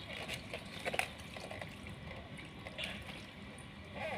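Faint scattered clicks and knocks from a plastic ride-on toy excavator's arm and bucket being worked, over a low watery hiss.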